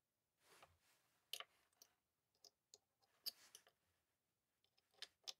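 Near silence with a handful of faint, scattered clicks, in small pairs about two seconds apart.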